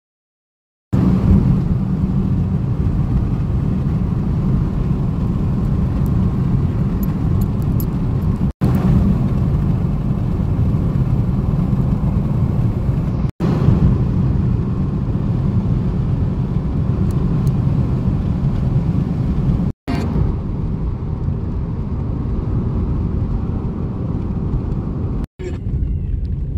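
Steady low rumble of road and wind noise from a moving car. It starts about a second in and drops out briefly four times where clips are joined.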